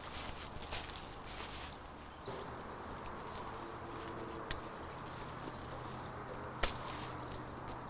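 Footsteps crunching and rustling through dry fallen leaves in the first couple of seconds, then a faint steady hum with a single sharp click about six and a half seconds in, as a handset is picked up off the leaf litter.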